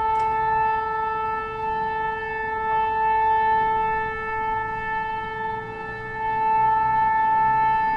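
Nuclear alarm siren sounding one steady, unchanging tone, swelling and fading slightly in loudness.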